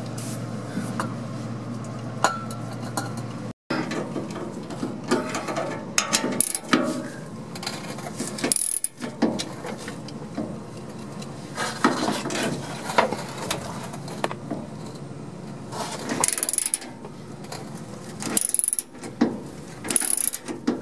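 Hand ratchet wrench clicking in spells as old skid-plate bolts on a truck's underside are worked loose, with scattered metallic clinks. A steady low hum fills the first few seconds and breaks off suddenly.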